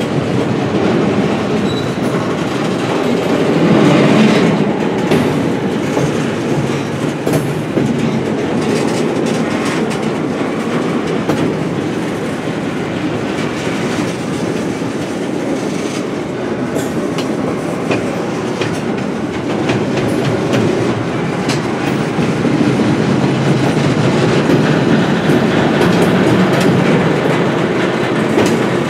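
Double-stack intermodal well cars rolling slowly past, a steady rumble of steel wheels on rail with wheels clicking over the rail joints, swelling a little as heavier cars go by.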